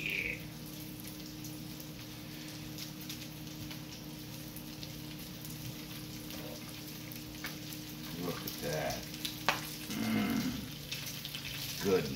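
Bacon strips sizzling and crackling in their fat on an electric griddle, over a steady low hum. A few sharp clicks come near the end as a fork turns and lifts the strips.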